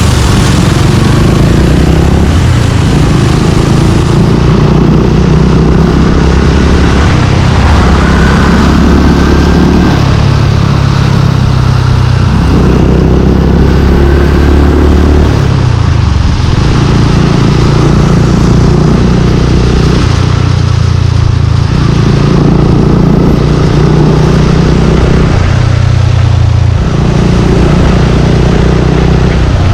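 Suzuki Gixxer 155's single-cylinder engine through an aftermarket Yoshimura exhaust, ridden in traffic. It pulls and backs off every few seconds, its note stepping up and down with the gear changes.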